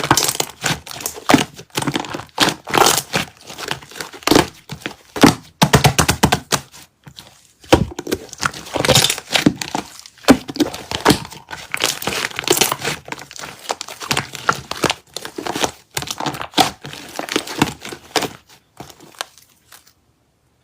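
Slime being squeezed and pressed by hand: a dense, irregular run of crackling, popping and crinkling clicks that stops near the end.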